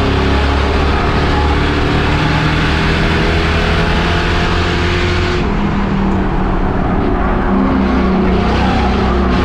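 Race car engine running hard at speed, its pitch shifting up and down as the throttle comes and goes; the engine note changes about five seconds in.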